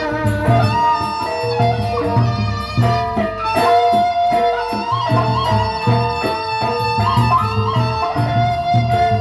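Sasak gendang beleq gamelan playing an instrumental passage: a held, wavering reedy melody line over regular low drum strokes and short cymbal crashes.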